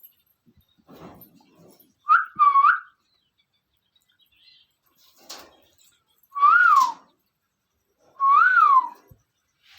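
Ring-necked parakeet whistling: a quick two-note whistle, then two separate longer whistles that each rise and fall in pitch.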